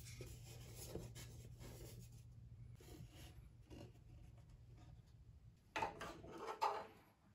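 3D-printed plastic body panels rubbing and knocking lightly as they are handled and fitted together, with two louder short scrapes near the end.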